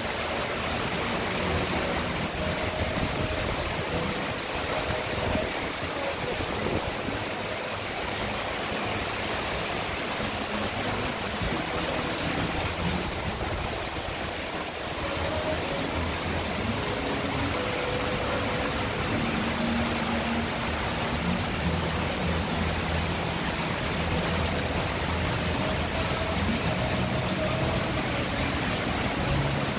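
Heavy rain pouring steadily onto canal water and a wooden deck. A faint low engine drone comes in during the second half.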